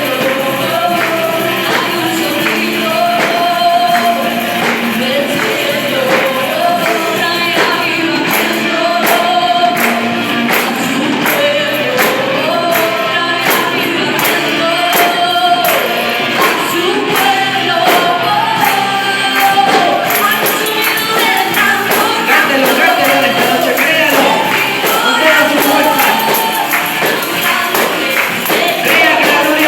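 Christian gospel song with a choir or group of voices singing over a band, with tambourine-like percussion keeping a steady beat.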